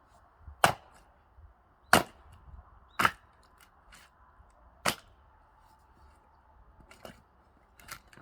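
Firewood being split: four sharp strikes of a splitting tool on logs, spaced about a second apart, then two fainter knocks near the end.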